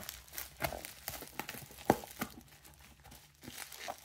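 Plastic packing tape and bubble wrap crinkling and tearing as a heavily taped parcel is cut open with a blade: irregular crackles and small snaps, with one sharper snap about two seconds in.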